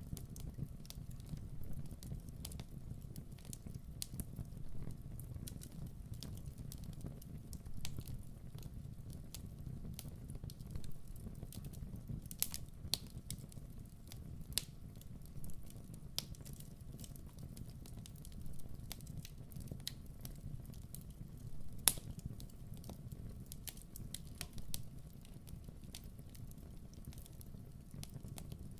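Wood fire burning in a fireplace: a steady low rumble of flames with irregular crackles and pops, the sharpest pop about three quarters of the way through.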